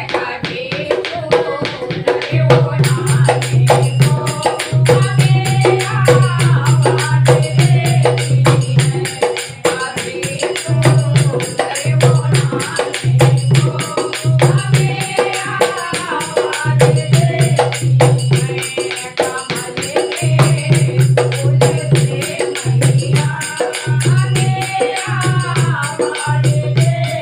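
Hindu devotional bhajan: a voice singing a melody over fast, dense percussion and long held bass notes.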